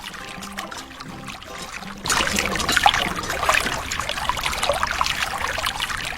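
Water pouring and splashing, much louder from about two seconds in, over faint background music.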